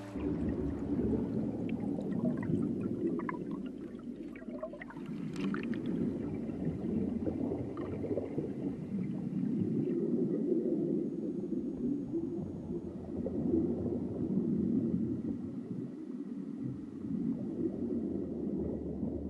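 Flowing river water heard underwater: a low, churning rumble and gurgle that swells and ebbs, with a scatter of small clicks and pops from a few seconds in to about six seconds in.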